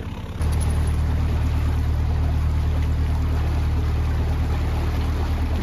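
Narrowboat engine running steadily, a low even hum. It cuts in about half a second in, as the music ends.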